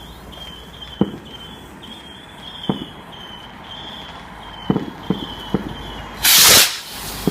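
Fireworks going off in a display: a series of separate booms, about five of them, then a loud half-second rush of noise near the end. A thin, high, steady tone with short breaks runs underneath.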